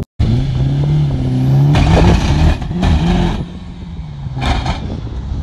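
Mitsubishi Lancer Evolution IX's turbocharged 2.0-litre four-cylinder held at steady high revs on the line, then launching hard and accelerating away with rising pitch, quieter after about three and a half seconds. This is the launch in which its incorrectly mounted rear differential worked loose.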